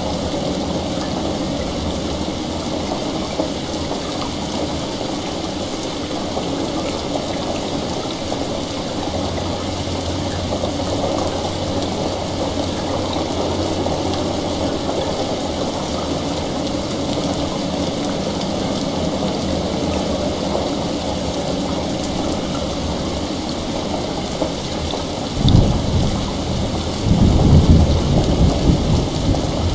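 Steady heavy rain. Near the end thunder rumbles in twice, a short low roll and then a longer, louder one.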